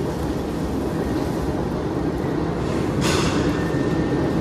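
Kobelco gyratory crusher crushing iron ore: a loud, steady, dense rumble. A brief hiss comes about three seconds in, followed by a thin steady whine.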